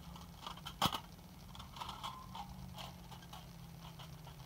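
Small folding metal pocket stove being handled and put together: light metallic clicks and clinks of its plates, with one sharp click a little under a second in.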